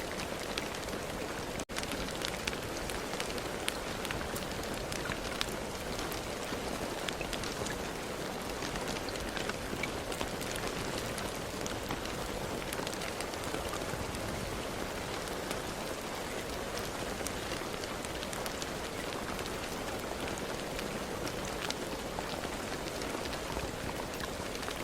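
Steady rain, an even hiss with many individual drops ticking on a hard surface. The sound cuts out for an instant about a second and a half in.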